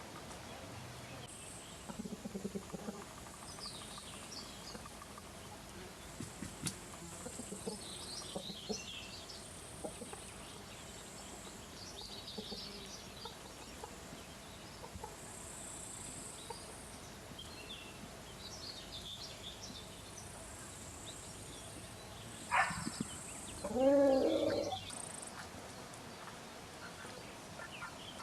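Chickens in the open: a few soft low clucks and small wild birds chirping high and faint. Near the end, after a sharp click, comes one short, loud crow from a Silkie rooster, lasting about a second and a half.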